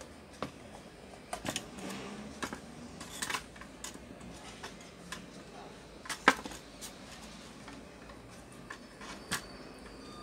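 Irregular plastic clicks and knocks from the housing of a MINISO A18 wireless speaker being handled and opened, with the loudest knock about six seconds in.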